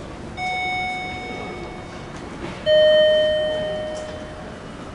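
Two-note electronic chime, a higher note and then a louder, lower one, each ringing out and fading away: a descending ding-dong.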